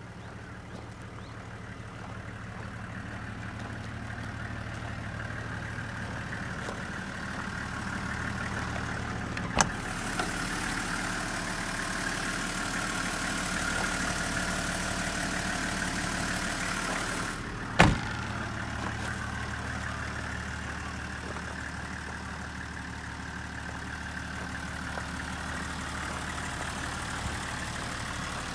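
Toyota Coaster's 1HZ 4.2-litre inline-six diesel idling steadily, its sound changing in character for several seconds in the middle. Two sharp clicks break in, about ten seconds in and again just before the twentieth second.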